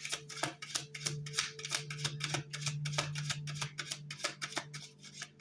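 Tarot cards being shuffled by hand: a quick, uneven run of soft card flicks and slaps, about five a second. Quiet background music with a steady low held note runs underneath.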